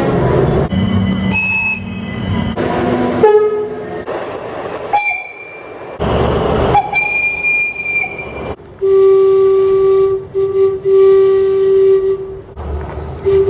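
A rapid series of train horn blasts from different trains, one short clip after another over the rumble of passing trains, at several different pitches. The longest is a low single-tone horn held for about four seconds in the second half, broken twice very briefly.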